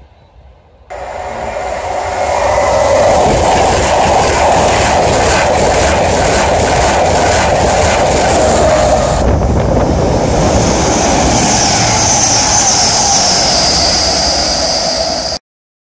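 High-speed train passing at speed, close by: a loud rush of wheels and air with a quick run of clicks from the wheels in the middle, then a high whine that falls slightly. It cuts in suddenly about a second in and cuts off abruptly near the end.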